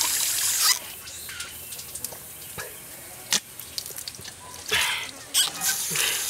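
Water running from a tap stops abruptly under a second in. Then come drips, splashes and light knocks of a bowl being washed by hand, with a few short gushes of water in the second half.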